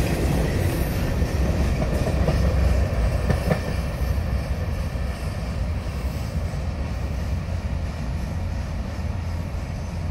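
Rear hopper cars of a freight train rolling away on the track. The wheel rumble and rail clatter fade steadily as the train recedes, with one faint click about three seconds in.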